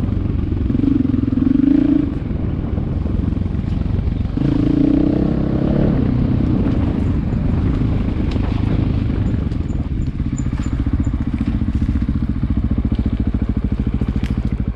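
An engine running steadily with a rapid, even firing rhythm, swelling twice: about a second in, and again between about four and six seconds in.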